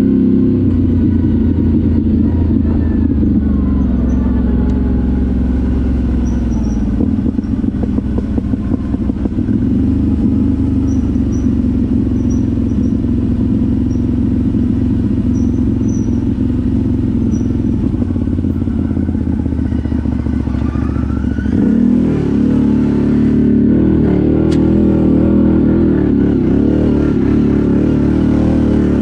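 ATV engine running steadily while riding off-road, its pitch dropping a few seconds in and climbing again past twenty seconds as the throttle changes. A stretch of rattling knocks runs from about seven to ten seconds in.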